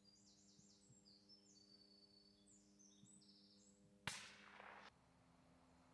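Faint, quiet outdoor ambience with a songbird's short high chirps, then about four seconds in a single sharp rifle shot with a brief echoing tail.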